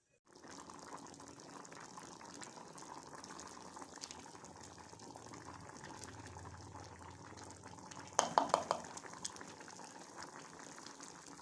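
Pot of matoke, green bananas and potatoes cooking in water, simmering with a steady bubbling hiss. A short run of sharp knocks stands out about eight seconds in.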